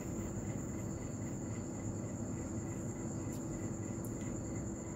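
Crickets trilling in one steady, high, continuous tone over a low, even background hum, with a couple of faint clicks past the middle.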